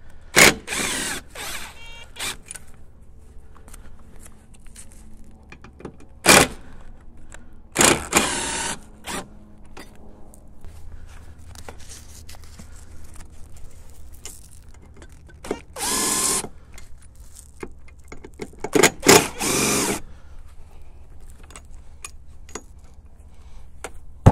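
Makita cordless impact driver with a T30 Torx bit backing out the roll bar bracket screws on a Jeep Wrangler soft top, running in several short bursts of a second or less with pauses between.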